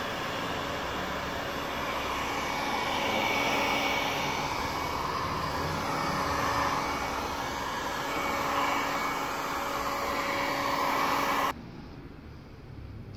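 Electric heat gun blowing hot air onto a car window to soften the film for removal, a steady whooshing hum with a faint whine, switched off abruptly near the end.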